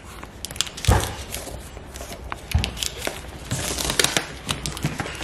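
Plastic shrink wrap on a cardboard trimmer box crinkling and tearing as it is picked at and peeled off by hand, in irregular crackles. A dull knock about a second in and another near the middle as the box is handled.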